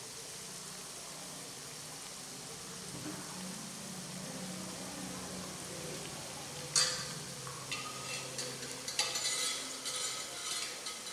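Masala-coated peanuts deep-frying in hot oil in a kadai, sizzling steadily. About seven seconds in there is a sharp knock, then a run of clicks and crackles.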